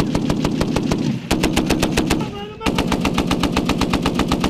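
M2 .50-caliber heavy machine gun firing long, rapid bursts. The shots come in three strings with short breaks between them.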